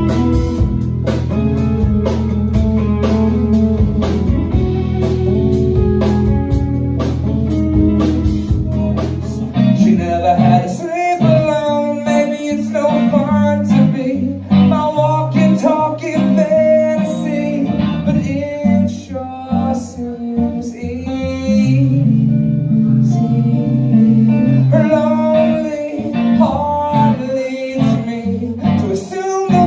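Live band music: drums, bass and electric guitar for about the first ten seconds, then a male singer singing with electric guitar accompaniment.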